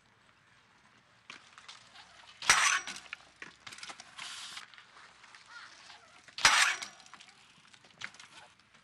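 BMX bike clanking down hard on concrete twice, about four seconds apart, each a sharp metallic bang with a short ring from the frame and parts. A scraping hiss around the middle, with smaller clicks and rattles between.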